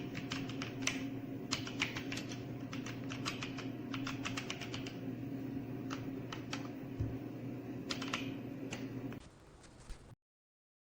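Typing on a computer keyboard: a quick, uneven run of key clicks over a steady low hum, thinning out and stopping about nine seconds in, followed by a cut to silence.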